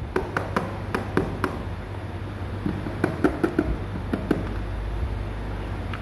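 A kitten's paws and claws tapping and scratching on a hollow plastic stool seat, in two flurries of quick taps: one in the first second and a half and another around the middle. A steady low hum runs underneath.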